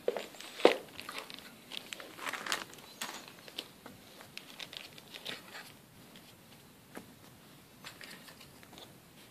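Clear plastic bags of model-kit parts crinkling and crackling as they are handled and laid down, in a quick run of sharp crackles early on that thin out into scattered ticks. The loudest crackle comes about half a second in.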